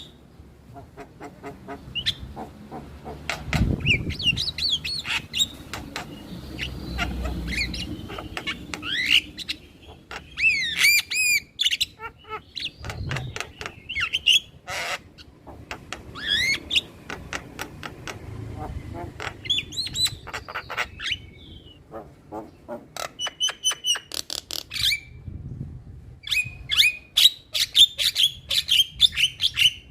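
Male Javan myna calling: rapid runs of harsh clicks and squawks mixed with whistled notes that rise and fall, in repeated bursts with short pauses between them.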